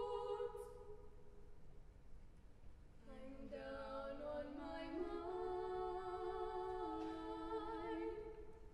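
Mixed youth vocal group singing a cappella. A held chord dies away in the first second, and after a brief hush a new chord comes in about three seconds in and is held, its lower voice stepping up in pitch, before fading near the end.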